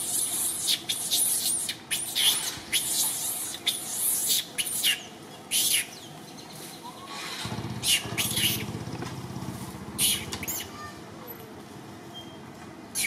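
Birds chirping in short, quick calls, busy through the first half and then scattered. A low, steady rumble comes in about halfway.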